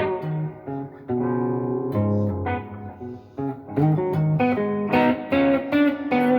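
Gibson SG Special electric guitar on its neck pickup playing slow blues in A minor, tuned down to Eb, through a Fender Blues Junior IV tube amp with overdrive, delay and reverb. Picked single notes ring over held low notes.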